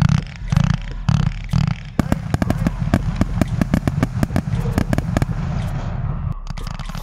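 Consumer fireworks going off: a dense run of sharp crackles and bangs, with several heavier thumps in the first two seconds.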